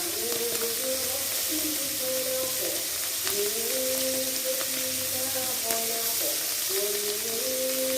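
Salted fish (ikan peda) frying in hot oil in a pan, a steady sizzle throughout, with a background music melody over it.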